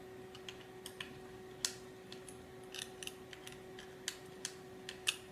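Hand screwdriver tightening small M3 bolts: a string of irregular light clicks and ticks as the bit turns and seats in the screw heads, over a faint steady hum.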